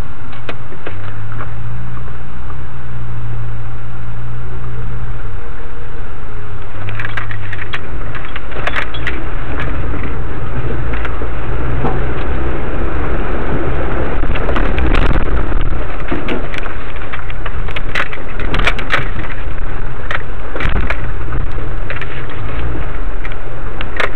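Off-road vehicle engine running steadily, with a dense clatter of rattles and knocks from about seven seconds in.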